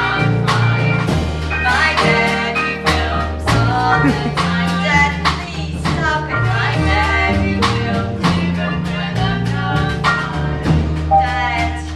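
Live band music with bass and drums keeping a steady beat under sustained notes, with some singing.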